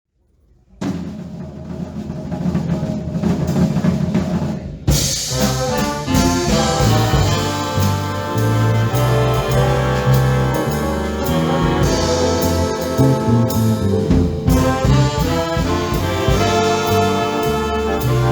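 Swing big band with trumpets and trombones: a held, swelling chord enters about a second in, then a moment later the full band with drum kit breaks into a swing tune.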